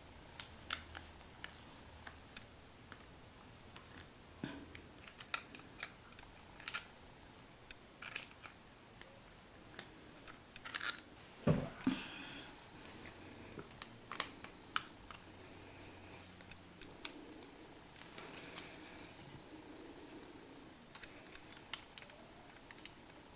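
Irregular sharp clicks and taps of small hand tools and metal hardware being worked on an accordion bass strap, with one louder knock a little before halfway.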